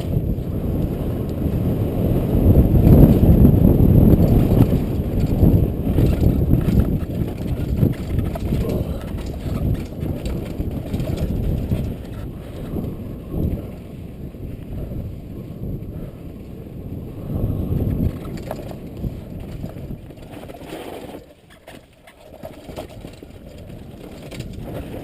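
Wind buffeting the microphone and the scrape of riding fast over snow. It is loudest a few seconds in, eases off about halfway through, and drops away briefly about 21 seconds in.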